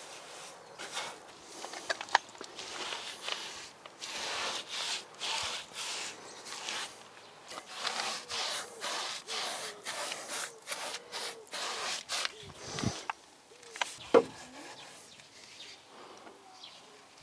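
Paintbrush strokes on rough wooden wall boards: a dry rubbing sound repeated every second or so, with a couple of sharper knocks.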